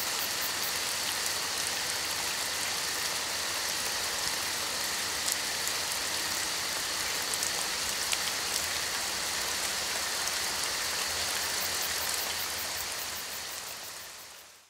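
Rain falling steadily, with scattered small drop ticks, fading out over the last couple of seconds.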